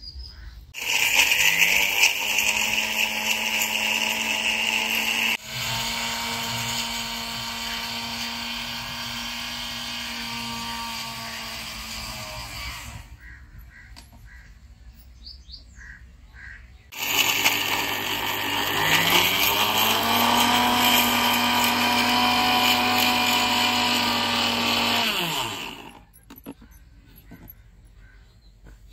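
Electric mixer grinder's motor grinding biscuits into powder, in two runs. The first run starts about a second in with a rising whine and goes for about twelve seconds. After a pause of a few seconds the second run starts the same way, goes for about eight seconds and winds down with a falling pitch.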